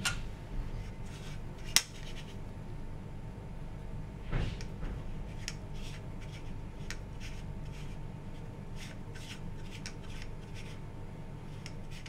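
Gloved hands handling a plastic Petri dish and its lid: a sharp click a little under two seconds in, a soft knock about four seconds in, then a run of light clicks and rubbing. Underneath is a steady low hum.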